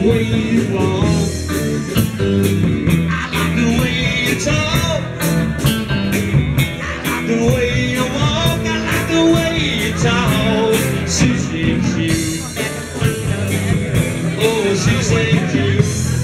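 Background music: a song with a singer and a steady beat.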